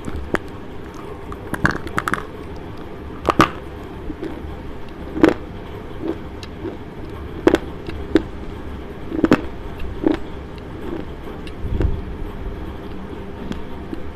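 Slate pencil being bitten and chewed right against a clip-on microphone: sharp, irregular crunches every second or two, over a steady low rumble.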